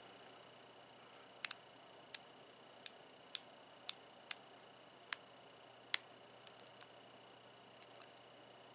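Proto 3/8-inch drive 90-tooth flex-head ratchet clicking: a series of sharp, separate clicks, about eight over four seconds, then a few fainter ones.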